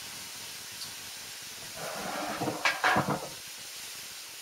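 A steady hiss from crêpe batter cooking on an electric crêpe maker, with a couple of knocks about three seconds in as the batter jug is set down on the table.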